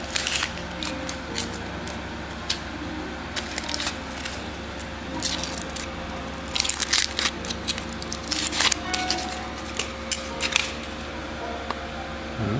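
Aluminium foil wrapper being peeled off a Kinder Surprise chocolate egg by hand: crinkling and crackling in irregular bursts.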